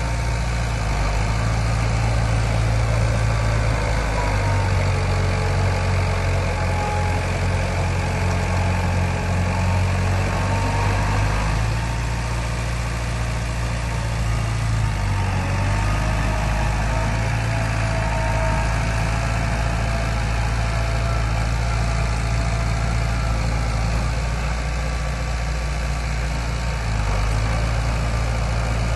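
Diesel engine of a D31P crawler bulldozer running steadily as it works. Its note drops slightly about twelve seconds in and picks up again near the end.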